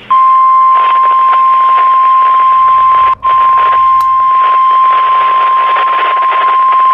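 NOAA Weather Radio's 1050 Hz warning alarm tone: one loud, steady tone over radio static, broken by a split-second dropout about three seconds in. It signals that a warning message follows, here a severe thunderstorm warning.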